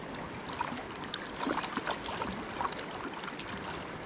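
River current flowing and lapping around a wading angler's legs, with scattered small splashes and light ticks.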